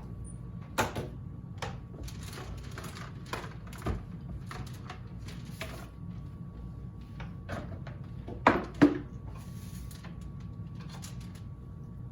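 Steady low room hum with scattered light knocks and clicks, and two louder knocks close together about eight and a half seconds in.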